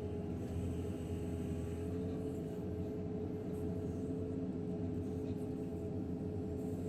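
JCB 3DX backhoe loader's diesel engine running steadily, with a steady high tone over the low engine note.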